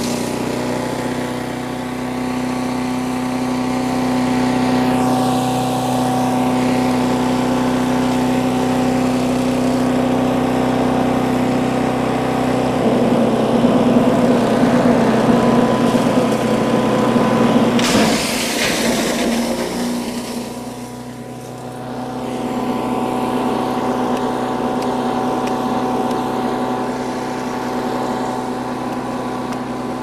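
Harbor Freight chipper shredder's small single-cylinder gas engine running at a steady pitch while it shreds pieces of 2x12 lumber. The shredding gets louder and rougher from a little before halfway, with a sharp crack a little past halfway, then the level briefly drops before the steady running returns.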